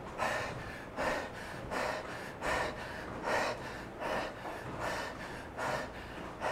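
A man breathing hard and gasping, one loud breath a little less than once a second, as he recovers from a near-all-out treadmill sprint repetition in low-oxygen air equivalent to about 3,000 m altitude.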